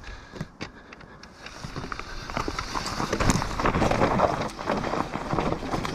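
Loose stones and rubble crunching and clattering on a trail surface: a few single clicks at first, then a dense, steady crunching that builds up about a second and a half in.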